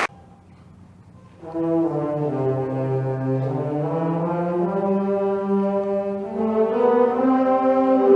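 Wind band brass playing slow, sustained chords that slowly shift in pitch, coming in about a second and a half in after a brief hush.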